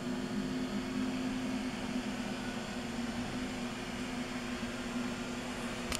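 Premier dual-shaft change-can mixer running on test, a steady machine hum. A single sharp click comes just before the end.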